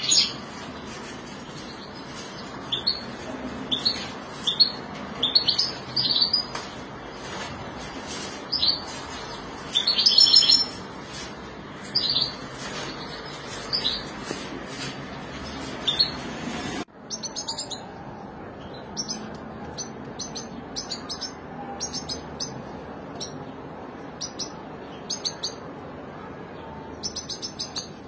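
Caged European goldfinches and canaries chirping: scattered short, high call notes, then, after an edit about 17 seconds in, quicker runs of short chirps.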